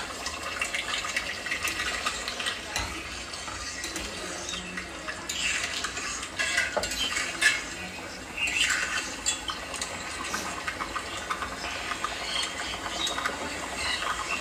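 Egg curry in tomato gravy boiling in a metal kadai on a gas stove: the gravy bubbles and pops with many small scattered clicks.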